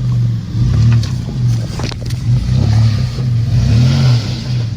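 Off-road SUV engine revving up and down under load, its pitch rising and falling several times as the vehicle works over an obstacle. There are a few sharp clicks about two seconds in.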